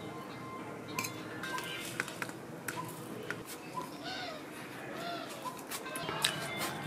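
Birds calling in the background, short chirps repeating about once or twice a second. Several sharp clicks and taps from steel plates and a steel tumbler being handled while eating by hand.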